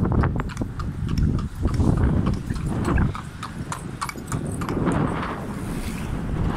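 A horse pulling a cart, its hooves clip-clopping on asphalt in quick repeated clicks, over low wind rumble on the microphone. The hoofbeats thin out after about four seconds.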